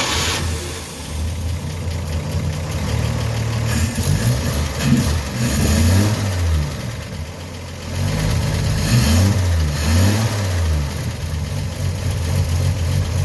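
1953 Chevy 3800 truck's straight-six engine starting right at the start and running, revved up and down twice, and running poorly, which the owner puts down to too much choke.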